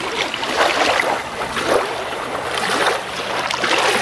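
Choppy lake water lapping and splashing at a pebbly shore and against a canoe's hull, with some wind on the microphone.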